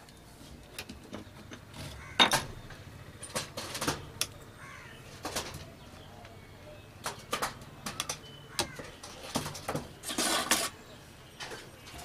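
Scattered clicks and taps from a computer power supply's circuit board and a soldering iron being handled while a filter capacitor is desoldered. The sharpest click comes about two seconds in, and a short scraping burst comes near the end as the capacitor comes free.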